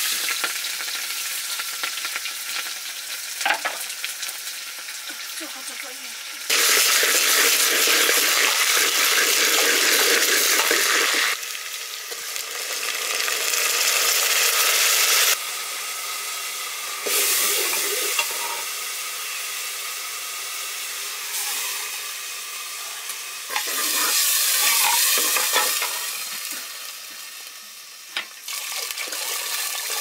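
Food sizzling as it fries in hot oil in a cooking pan: a steady, dense hiss that abruptly gets louder and softer several times.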